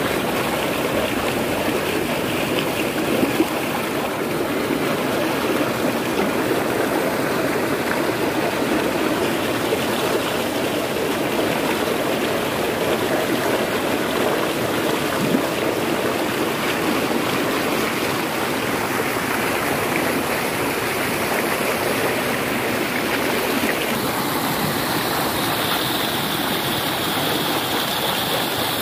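Rocky mountain stream rushing steadily, water pouring over boulders in a small cascade into a pool. About five seconds before the end the rush turns brighter and hissier, as whitewater tumbling over the rocks comes close.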